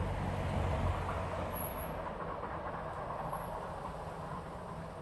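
Rumble of a steam-hauled train, 35028 Clan Line with its Pullman carriages, running away down the line, fading steadily as it recedes.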